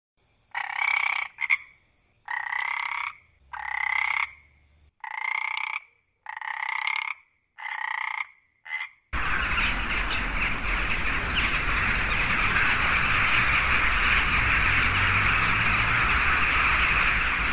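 A run of about seven short, evenly spaced animal calls, each under a second, then an abrupt switch about nine seconds in to a dense, steady chorus of many calling animals.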